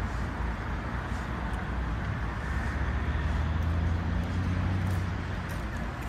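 Low rumble of road traffic, with one vehicle's engine swelling louder about halfway through and easing off near the end.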